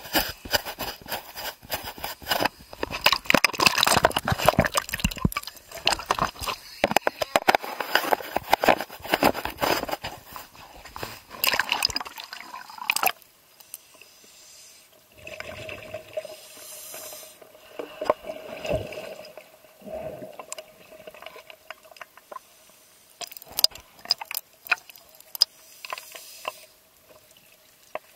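Water splashing and bubbling, with dense crackles for about the first half, then quieter with occasional short surges of bubbling.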